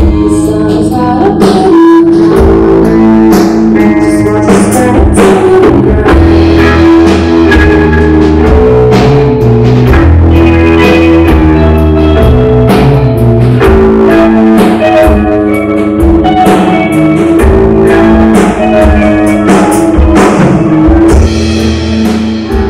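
Live rock band playing loudly: electric guitars and bass over a steady drum-kit beat.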